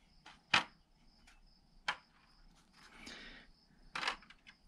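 Small metal diesel-injector parts being set down into a tray of diesel fuel: a few sharp clicks and taps at uneven intervals, with a short rustle of handling about three seconds in.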